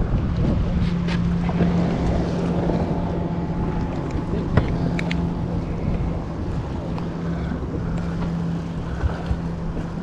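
Wind on the microphone and water sloshing around a small fishing boat, over a steady low hum, with a few light clicks and one sharper knock about halfway through.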